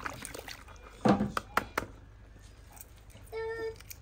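Kitchen handling sounds: a loud knock about a second in, then a few sharp clicks of kitchenware, with some water being handled. Near the end there is a brief steady high note.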